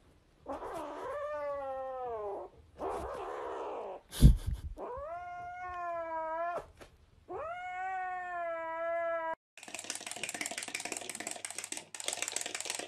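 A kitten meowing in four long, drawn-out calls, with a sharp knock about four seconds in. Near the end the meowing stops and a fast, dense rattling with a low hum begins.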